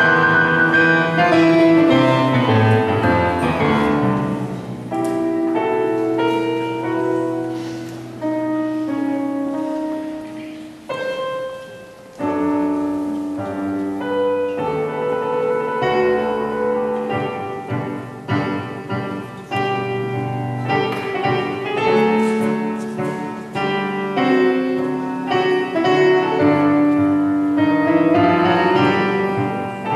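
Roland digital stage piano playing a slow classical piece, with sustained chords and melody notes. It quietens to a brief pause about twelve seconds in, then resumes.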